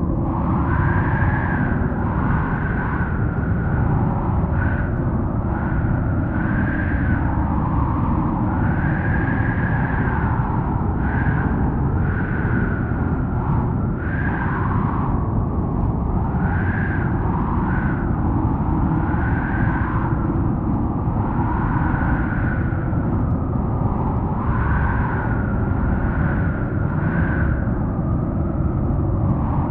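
Strong, cold howling wind: a steady low rumble of gusts under repeated whistling howls that rise and fall every second or two.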